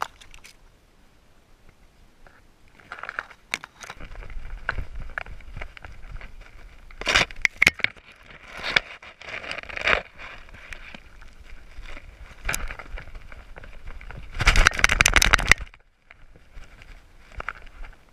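Leafy blueberry brush scraping and crackling against a dog-mounted camera as the dog pushes through the bushes. The rubbing is irregular, broken by sharp snaps, and peaks in a loud burst about a second long near the end.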